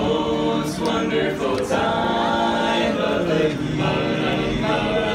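Barbershop quartet of men singing a cappella in close four-part harmony, moving through a series of held chords.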